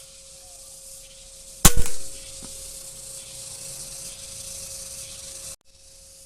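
A single shot from a PCP air rifle: a sharp crack, with a second knock a split second after it.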